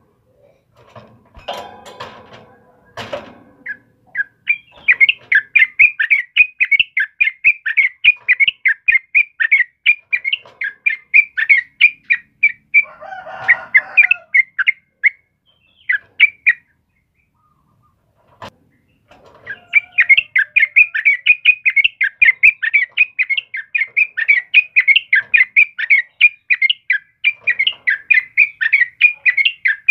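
Yellow-vented bulbul (trucukan) singing long runs of rapid, repeated chattering notes. It breaks off for a couple of seconds past the middle and then starts again.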